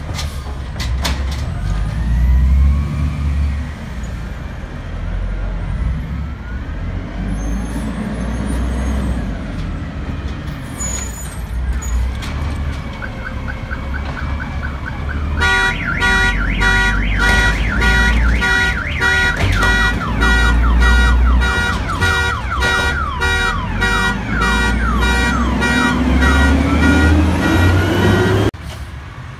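2005 diesel garbage truck engine running. About halfway in, a loud, fast-repeating electronic warble like an alarm or siren starts over it. Near the end the engine pitch rises steadily, then the sound stops suddenly.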